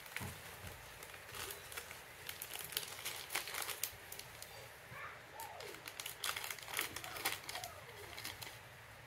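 Soft crinkling and many small irregular clicks from a seed packet and a plastic seedling tray being handled while zinnia seeds are sown into the cells.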